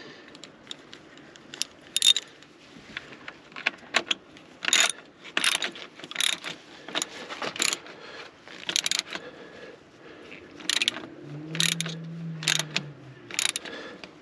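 Irregular metallic clicks and clinks of hand tools, a ratchet among them, working on the fuel filter fittings of a Mercedes W201 190D diesel while they are tightened. A short low hum comes about two seconds before the end.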